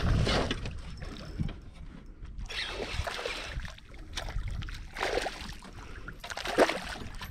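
A small hooked fish splashing at the water's surface as it is reeled in beside a boat, in several short bursts, over a steady low rumble of wind on the microphone.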